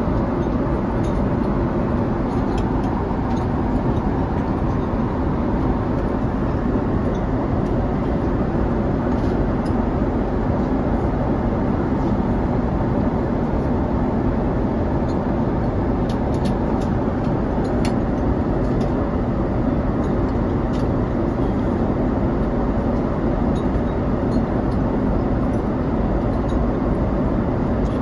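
Steady rushing cabin noise of an airliner in flight, engine and airflow noise heavy in the deep end, with a few faint clicks in the middle.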